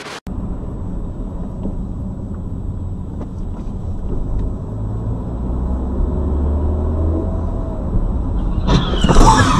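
Road and engine noise heard inside a moving car on a dashcam recording: a steady low rumble that slowly grows louder. It opens with a brief hiss of static. Near the end a sudden loud, harsh noise with short squeals sets in and runs on.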